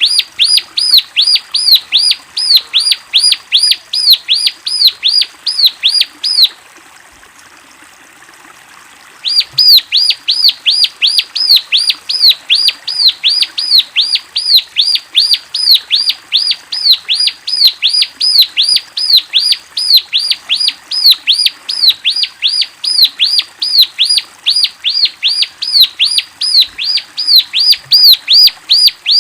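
A small songbird calling in a fast, even series of sharp, downward-slurred chirps, about three a second. It breaks off for about three seconds partway through, then starts again in the same pattern.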